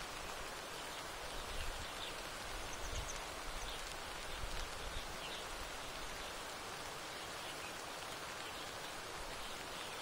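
Steady hiss of rain falling, with faint high bird chirps here and there and a few low rumbles in the first half.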